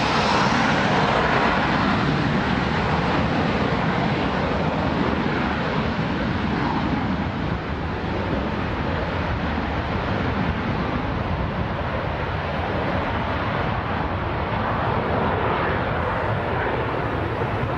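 Jet airliner engine noise, a steady rushing that is loudest about a second in and then eases slowly as the higher tones fade.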